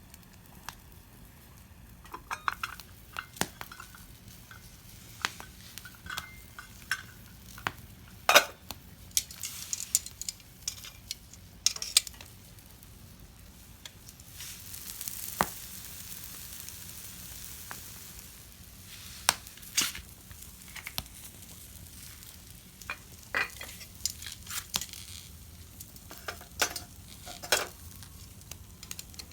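Cooking over a small wood fire: faint sizzling with many scattered sharp clicks and pops, and a stretch of hissing about halfway through.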